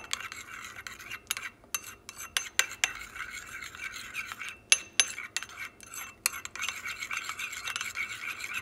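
A metal spoon stirs thick mayonnaise and banana-ketchup sauce in a ceramic bowl, clinking and scraping against the bowl again and again. The scraping turns steadier near the end.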